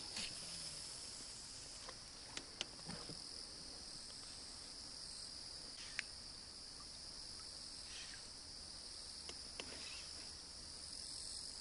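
Faint, steady high-pitched trilling of insects, with a few faint short clicks scattered through it.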